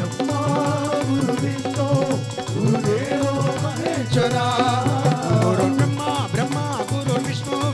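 Devotional bhajan music: men singing an ornamented melody to tabla and dholak drumming and a harmonium.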